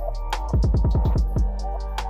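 Background music with a steady beat; about a quarter of the way in comes a quick roll of deep drum hits lasting about a second.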